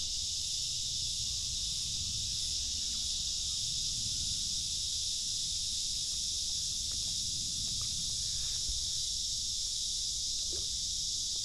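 Steady, high-pitched chorus of insects, with a low rumble underneath and a few faint ticks.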